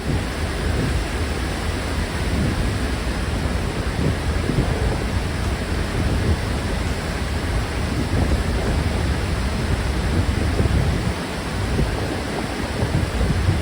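Låtefossen waterfall close by, a steady loud rush of falling water with a deep rumble underneath.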